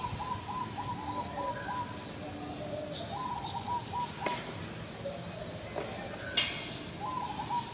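A bird calling a repeated phrase, a quick run of pulsed notes followed by a few lower notes, three times about three and a half seconds apart. Two sharp clicks fall in the second half, the second one louder.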